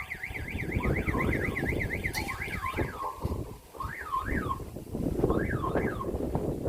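Russian-made electronic level-crossing bells sounding a warbling, car-alarm-like alarm: a fast warble that stops about three seconds in, under and after it a slower rising-and-falling sweep repeating about twice a second. Wind rumbles on the microphone.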